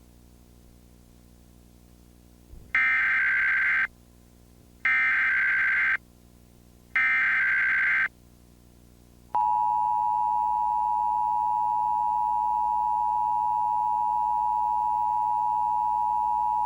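Emergency Alert System activation: three identical one-second bursts of the SAME digital header, a shrill warbling data tone, about a second apart, then about nine seconds in the steady two-tone EAS attention signal (853 and 960 Hz together) starts and holds.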